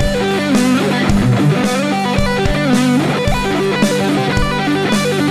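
Ibanez electric guitar playing a fast, repeating G major 7 arpeggio in groups of six notes, with hammer-ons and pull-offs. It sounds over a steady, sustained low G chord.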